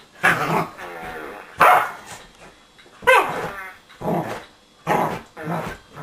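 A corgi barking and growling in about six loud bursts, going after a remote-control whoopee cushion hidden under the sofa cushion.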